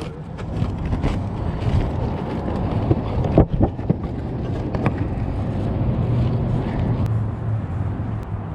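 A steady low rumble, with knocks and rustles of a cardboard donut box as its lid is folded shut. The sharpest knock comes about three and a half seconds in.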